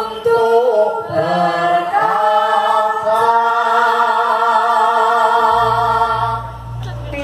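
A group of voices singing together, gliding between notes and then holding one long chord. A low steady tone comes in under the voices about five seconds in.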